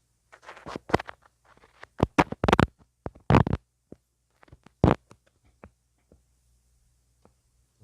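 Close-miked ear-cleaning sounds: a tool scraping and rubbing against a mini microphone in irregular strokes. Four louder scrapes stand out, with faint taps and ticks between them.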